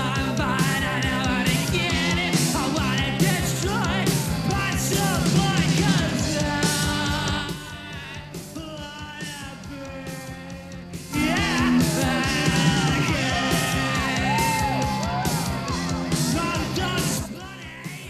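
Punk rock song with a shouted male lead vocal over electric guitar and drums. The band drops to a quieter passage about halfway through, then comes back in at full force.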